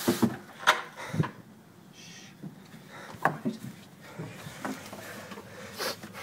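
Handling noise from a handheld camera brushed against a plaid shirt while moving: rustling with half a dozen sharp knocks and bumps, the loudest within the first second and a half.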